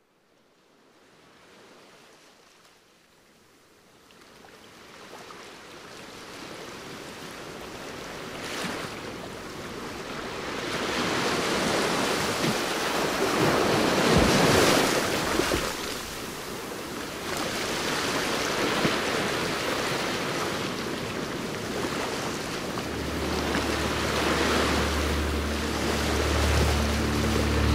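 Rushing water fading in from silence, swelling and ebbing like surf. A low, steady musical drone comes in near the end.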